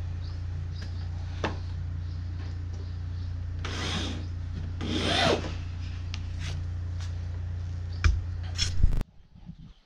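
Two rasping scrapes about a second apart: carpet rubbing against the wooden ammunition-box cat scratcher as a carpet panel is worked into place, over a steady low hum. A couple of knocks come near the end before the sound cuts off suddenly.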